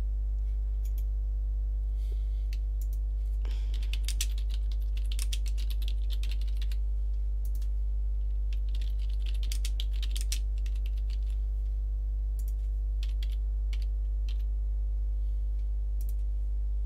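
Computer keyboard typing in bursts of quick key clicks, over a steady low electrical hum.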